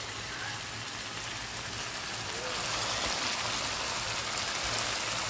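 Fried dried fish (bulad) sizzling in a pan of simmering tomato sauce: a steady crackling hiss that grows a little louder about halfway through.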